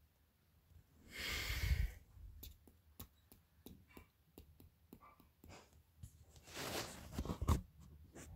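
Quiet clicks and taps of small parts being handled, with two longer rushes of breath, one about a second in and one about six seconds in.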